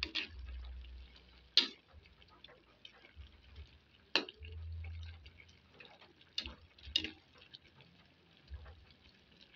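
Metal ladle tapping against a wok, about five sharp taps spread irregularly.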